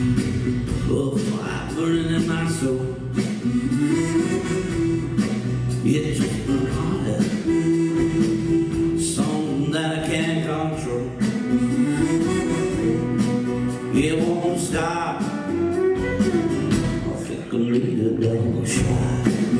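A live Cajun band playing a song: button accordion, fiddle, electric bass and acoustic guitar, with a voice singing.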